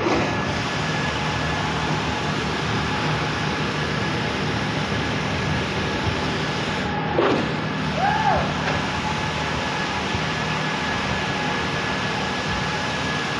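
Heavy engine of a concrete pump truck running steadily, with a couple of brief squealing pitch glides about seven and eight seconds in.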